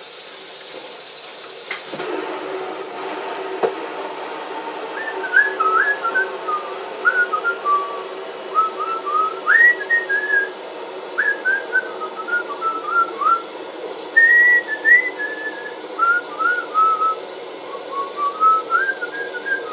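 A woman whistling a melody of short sliding notes, starting about five seconds in, over the steady rush of running tap water.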